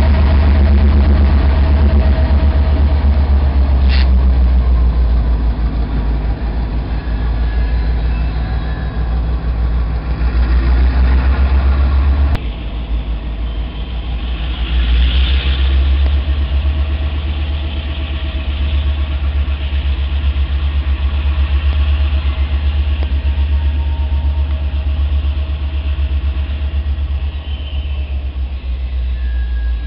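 Diesel-electric freight locomotives running with a steady low engine rumble, first close by, then farther off pulling a train of hopper cars. The sound drops a little about twelve seconds in.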